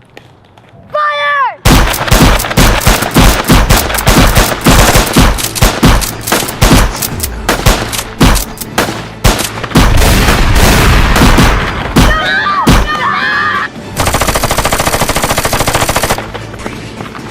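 Loud gunfire sound effects: rapid volleys of shots, then a steady stream of machine-gun fire for about two seconds near the end. A brief high pitched sound comes just before the shooting starts, and another comes in the middle of it.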